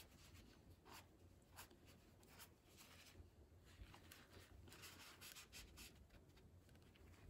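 Near silence, with faint, brief rustles of a tissue dabbing and rubbing excess glue from the edge of a piece of corrugated cardboard glued onto a card.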